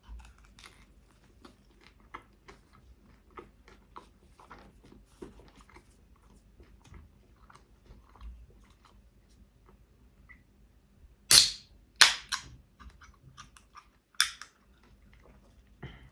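Close-miked chewing of a chicken shawarma wrap: soft, wet mouth clicks, with a handful of loud sharp crackles a little past the middle.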